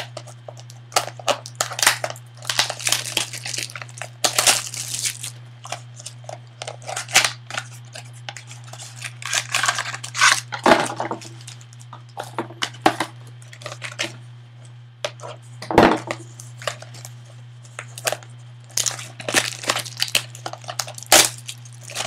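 Trading-card packaging handled by hand: foil pack wrappers crinkling and cardboard box packaging tearing, in irregular bursts of rustling and crackling, over a steady low hum.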